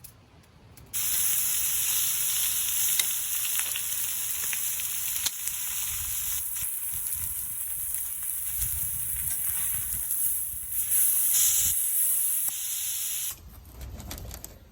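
Food sizzling in a hot frying pan: a steady hiss that starts abruptly about a second in and cuts off near the end.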